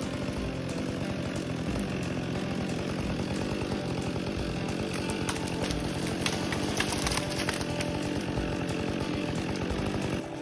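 Chainsaw running at high revs under load, cutting diagonally through the base of a small tree to sever it from the stump. The sound drops off sharply just before the end.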